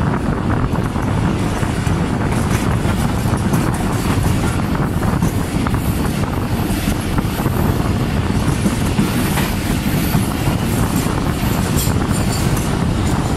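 A passenger train's coaches running at speed, heard from an open doorway: a steady loud rumble of wheels on track, with scattered sharp clicks as the wheels cross rail joints and points.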